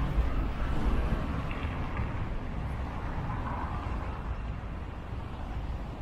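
City street traffic: cars and a minibus driving past on a wet winter road, a low rumble that is loudest in the first second or so and then eases off.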